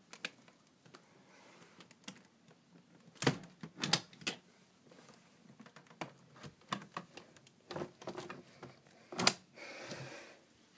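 A window being closed: irregular clicks and knocks from its handle and frame, the loudest about three to four seconds in and again about nine seconds in, followed by a short rustle.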